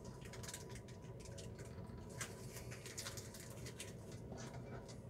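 Faint, irregular small clicks and scratches of hands fitting a spring, washer and rubber seal into a new RV toilet water valve, over a low steady hum.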